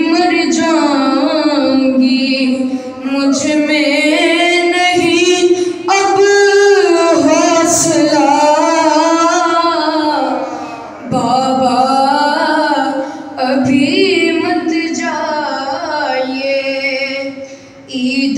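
A boy's unbroken voice chanting a noha, an Urdu lament, unaccompanied into a microphone, in long wavering held notes with short breaths between phrases.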